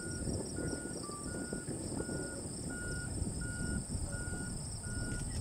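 Crickets and other insects chirping and trilling steadily, with a short electronic beep repeating evenly about every three-quarters of a second, like a heavy machine's reversing alarm, over a low uneven rumble.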